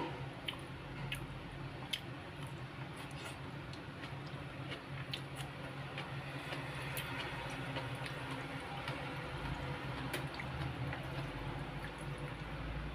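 Wet chewing with small scattered mouth clicks from someone eating with her hands, over a steady low hum. Near the end, fingers squish through greens coated in pecel peanut sauce.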